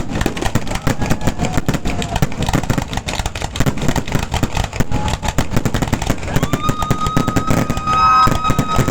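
Fireworks going off in a dense run of quick bangs and crackles. Over the last two seconds or so a long steady high tone sounds over them.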